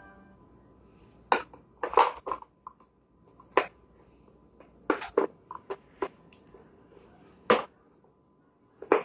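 A dozen or so irregular light taps and clacks of plastic Play-Doh tubs being handled and set down on a plastic high-chair tray.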